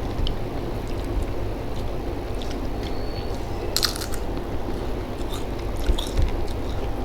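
Chewing and crunching crisp fried food such as papad, with one loud crunchy bite about four seconds in and smaller crunches after it. A steady low hum runs underneath.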